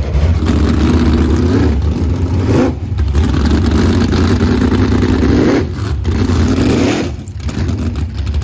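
Jet sprint boat's race engine being revved on a warm-up run, climbing in three long pulls, each dropping off briefly before the next.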